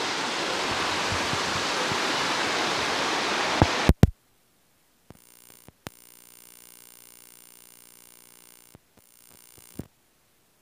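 Fast floodwater rushing through bushes and over a road, a steady noise that cuts off abruptly about four seconds in with a couple of clicks. After that only a faint buzz with a few scattered clicks, which stops near the end.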